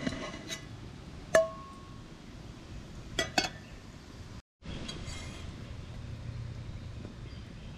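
Aluminium camp cookware pieces (pot, lids and frying pan of a nested cooker set) clinking against each other as they are handled and taken apart. There are a few light clinks; the loudest rings briefly about a second and a half in, and two quick ones follow around three seconds in.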